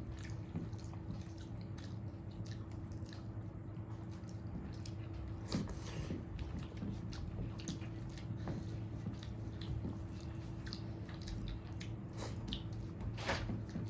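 A person chewing a mouthful of rice and curry: soft, wet mouth sounds and small clicks scattered throughout, over a steady low hum.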